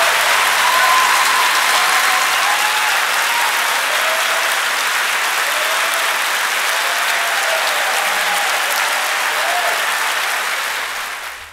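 Audience applauding, with a few voices calling out over the clapping; the applause fades out near the end.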